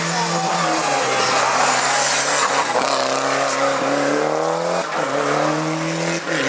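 Rally car engine pulling hard through the gears. Its pitch climbs and drops back three times, about a second apart, as it upshifts under full acceleration.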